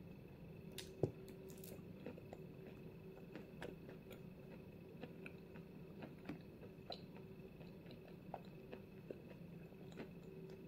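Close-miked, slow chewing of a soft white edible chalk: faint, moist crackling and small crunching clicks scattered throughout, with one sharper click about a second in.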